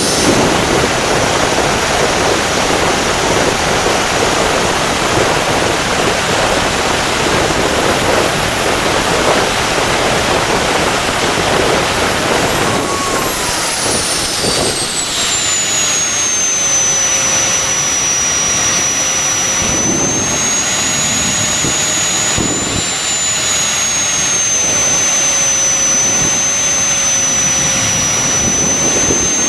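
Handmade turbojet engine running at about 69,000 rpm with a loud, steady jet roar. About 13 seconds in, its turbine whine glides down in pitch and then settles to a steadier, lower whine as the engine slows.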